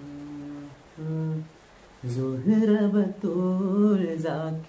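A man humming two short held notes, then singing a higher, wavering phrase unaccompanied: a demonstration of starting a song at a controlled pitch so that it does not go too high.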